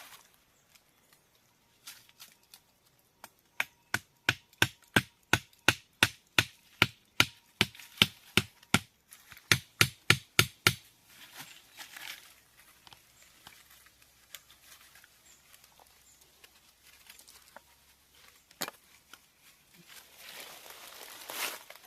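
Repeated sharp knocks of a tool striking wood, about three a second for some seven seconds with a short break midway. A single knock follows later, then rustling near the end.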